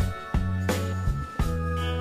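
Background music with a steady beat and held bass notes.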